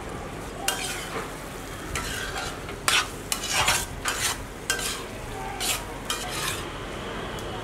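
A spatula stirring thick chicken curry in an iron kadai: a series of scraping strokes against the pan from about a second in until near the end, the loudest in the middle, over a low steady sizzle from the pan.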